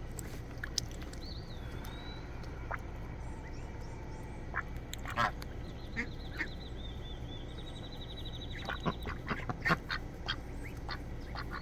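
Domestic ducks quacking in short, scattered calls, with a busier run of quacks near the end.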